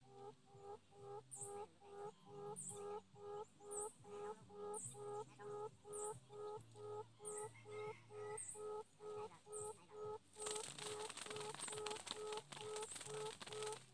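A buttonquail call: a long, even series of short hooting notes at one pitch, about three a second, the kind of call used to lure wild quail to traps. Faint high chirps come about once a second, and a steady hiss rises about ten seconds in.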